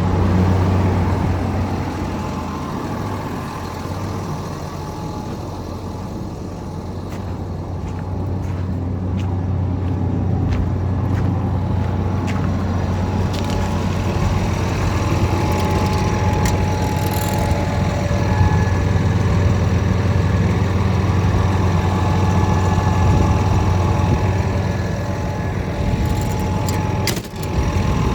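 Komatsu D65EX-17 bulldozer's diesel engine idling with a steady low hum. A few light clicks come through in the middle, and there is a brief sharp break near the end.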